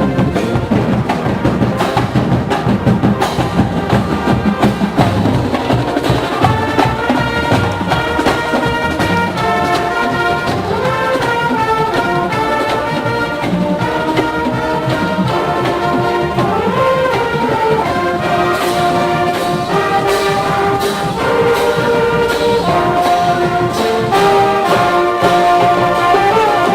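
Marching band playing live: a brass section carries a melody of held notes over drums. The drumming is heaviest in the first few seconds, and the band gets a little louder near the end.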